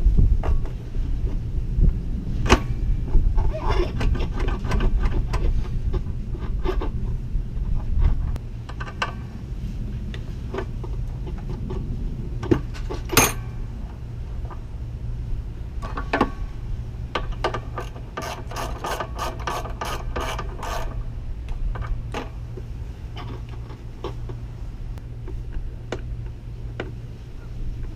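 Ratchet wrench clicking as bolts are worked during reassembly, with scattered metal clicks and knocks and a quick run of ratchet clicks about two-thirds of the way through, over a steady low hum.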